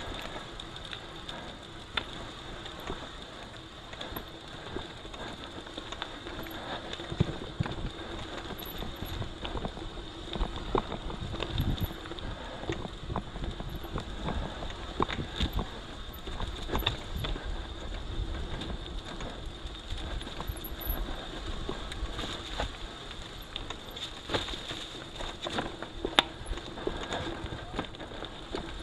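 Mountain bike ridden along a rough dirt trail: tyres rolling on the ground and the bike rattling and knocking over bumps, with a steady noisy rush beneath.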